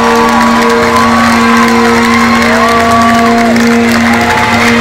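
Concert crowd cheering and whooping after a song, over a steady held note droning from the stage.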